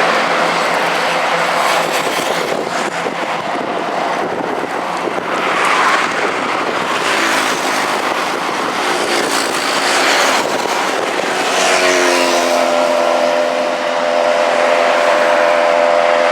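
Slow, heavy city street traffic: a steady wash of cars and trucks, with vehicles passing now and then. About twelve seconds in, one engine's hum rises a little and then holds steady over the traffic.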